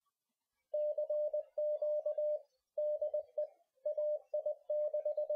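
Morse code (CW) sent as a single steady mid-pitched tone, keyed in dots and dashes with short pauses between characters, starting under a second in.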